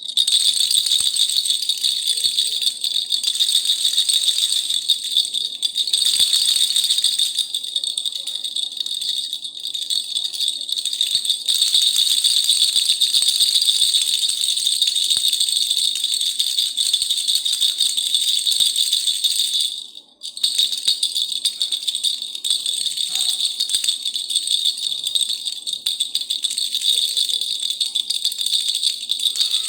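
A khulkhula, a traditional hand rattle, shaken without a break, a dense, high rattling of loose pellets. It stops briefly about two-thirds of the way through, then starts again.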